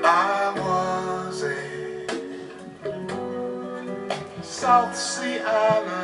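Recorded music with plucked guitar and a singing voice, played back through Devore Fidelity Gibbon Nine floor-standing loudspeakers driven by a 2A3 tube amplifier.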